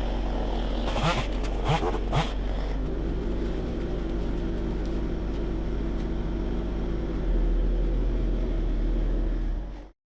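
An engine running steadily, with a few short sharp sounds in the first couple of seconds. It grows a little louder about seven seconds in, then the sound cuts off abruptly near the end.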